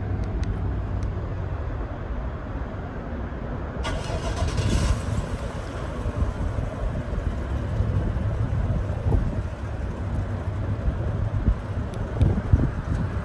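The 2020 GMC Sierra Denali's 6.2-litre EcoTec3 V8 running just after start-up, with a steady low rumble. A brief hiss comes in about four seconds in.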